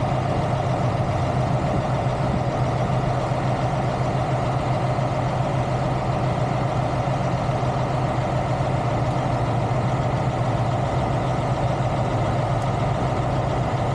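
Heavy truck engine idling steadily, a constant low drone with no change in speed.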